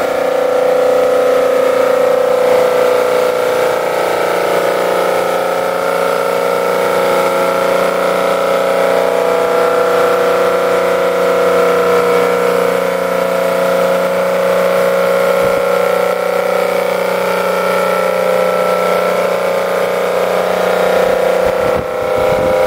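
Aston Martin DB4 GT twin-plug 3.7-litre straight-six, freshly rebuilt, running at a steady speed under load on an engine dynamometer while it is run in, breathing through triple Weber carburettors.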